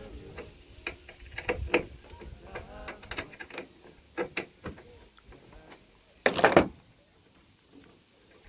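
Small clicks and taps of a tool and fingers working around the edge of a Ford F-150's plastic tail light housing, with one loud brief rush of noise about six seconds in.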